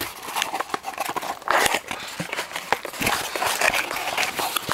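Plastic packaging crinkling and rustling as small parts are handled, with scattered clicks and knocks.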